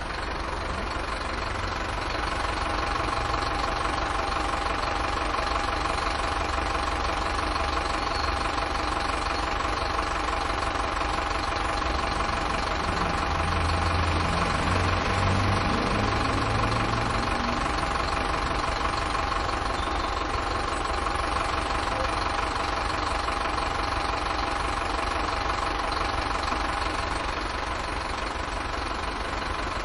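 Bus engine idling steadily with a low rumble and a constant whine. A deeper engine note swells for a few seconds around the middle.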